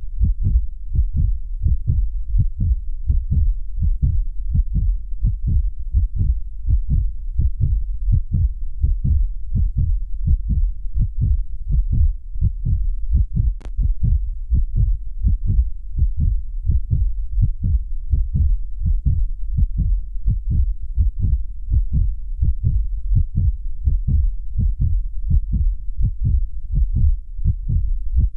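Human heartbeat beating at a steady rhythm, a continuous run of low, short thumps.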